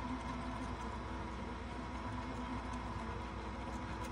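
Creality Hi printer and its CFS filament unit running with a steady whir and a faint whine while retracting filament back into the CFS.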